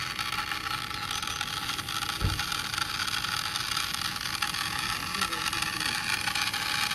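Steady outdoor background hiss, with a brief low thump about two seconds in.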